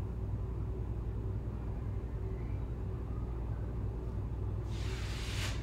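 Pause with no speech: a steady low hum of room and recording background, and a brief soft hiss near the end.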